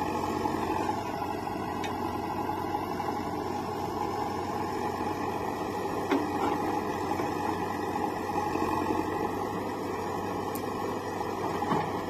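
Diesel engines of a JCB 3DX backhoe loader and a tractor running steadily while the backhoe loads soil. There is a brief knock about six seconds in.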